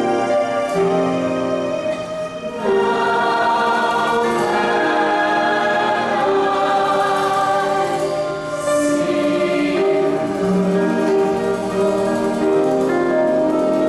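Mixed show choir singing long held chords in several voice parts, with a brief dip in level about two seconds in.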